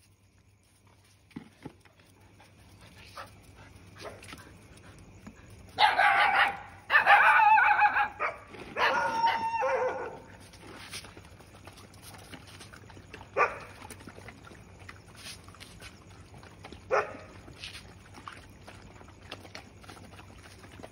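Stray dogs crowding round at feeding time. About six seconds in comes a run of loud, high-pitched dog cries lasting about four seconds, followed later by two single short cries a few seconds apart, with faint clicks in between.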